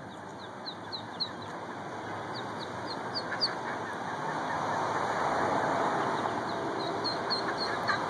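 Ducklings peeping: short, high, falling cheeps in quick runs, over a background hiss that grows louder about halfway through.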